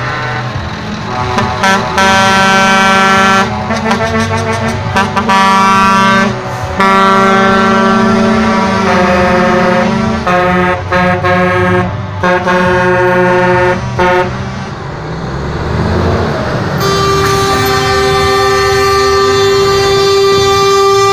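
Truck air horns sounding over passing trucks' diesel engines: a string of short and longer blasts with several notes at once, then one long steady blast near the end.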